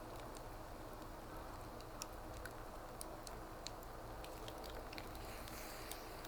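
Wood fire crackling in a fireplace: scattered sharp crackles and small pops over a low steady background.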